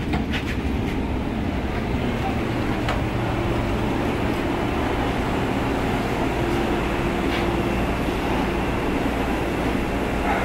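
Steady low rumble and hum inside a Vande Bharat Express train coach, with a few light clicks in the first second.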